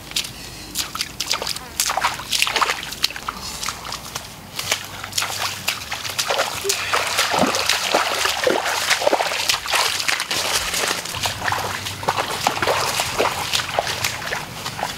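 Bare feet splashing and sloshing through shallow muddy water in a quick, irregular run of steps.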